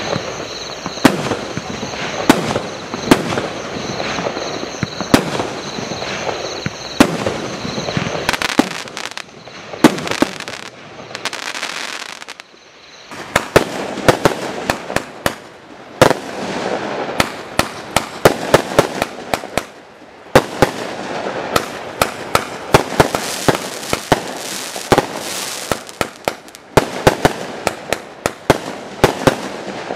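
Consumer barrage cakes (Primed Pyrotechnics) firing: sharp shot bangs about once a second with crackle between them. About a third of the way through there is a lull of crackling only, then the bangs come faster and denser, several a second, over a crackling bed.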